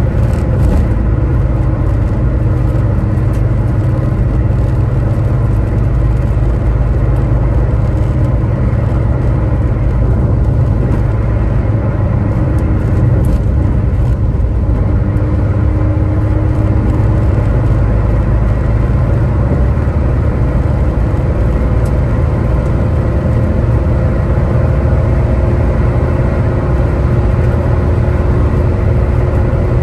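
A Maruti Suzuki Swift heard from inside the cabin while cruising near top speed, about 150 km/h at around 3,000–3,500 rpm. A heavy, steady low rumble carries a faint engine drone.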